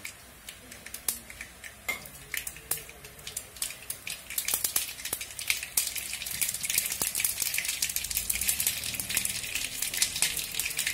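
Mustard seeds spluttering in hot coconut oil in an aluminium kadai: sharp pops and crackles over a light sizzle, growing much denser and louder about four seconds in as the seeds start to burst. This is the tempering stage, and the popping is the sign that the oil is hot enough.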